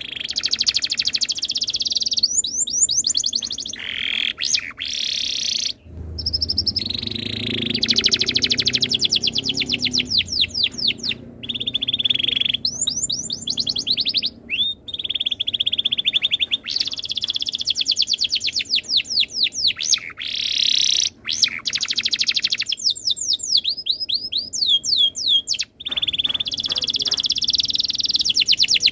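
Domestic canary singing long, fast trills and rolling phrases of rapidly repeated high notes, broken every few seconds by short breaks. A low rumble runs under the song for several seconds near the start.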